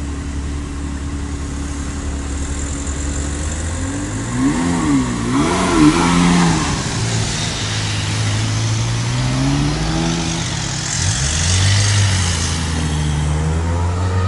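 Ferrari F360's V8 engine idling steadily, then blipped twice about four and a half seconds in. It then pulls away with a rising note, drops in pitch at a gear change and climbs again.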